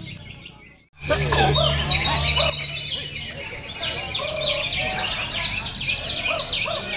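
Cucak ijo (green leafbird) song: dense, fast chirps and whistles, with several phrases overlapping at different pitches. The sound cuts out for a moment just under a second in, then resumes.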